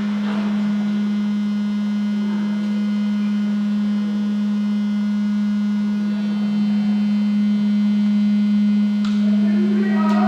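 Anti-fog fan built into airsoft goggles, buzzing with a steady low hum.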